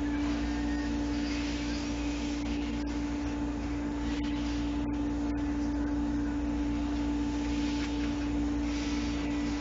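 Steady hum holding one constant mid-low tone, with a low drone and a faint hiss beneath it.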